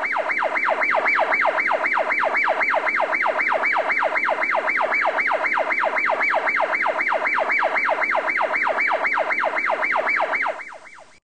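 Electronic siren in a fast yelp: one pitch sweeping up and down about four times a second, starting abruptly and fading out near the end.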